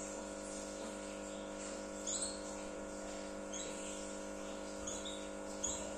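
Domestic canaries giving a few short, high chirps, spaced a second or so apart, starting about two seconds in, over a steady hum.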